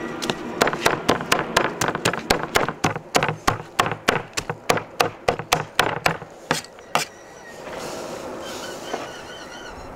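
Steel cleaver chopping roasted chicken on a wooden cutting board: quick, even blows about four a second that stop about seven seconds in.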